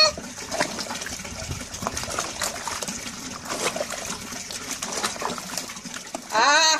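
Water sloshing and trickling in a plastic bucket as a cat is washed by hand. Near the end, the cat gives one long, loud meow that rises and then falls in pitch.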